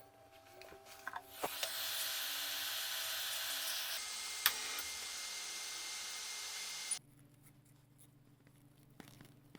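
Steady hiss of rushing air that starts about a second and a half in after a few light clicks and cuts off suddenly about seven seconds in, with one sharp click partway through.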